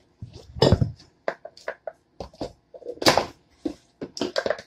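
Kitchen handling sounds: a run of irregular knocks, clicks and short scraping rustles as things are moved about on a countertop. The loudest is a heavy knock about half a second in, with another burst about three seconds in.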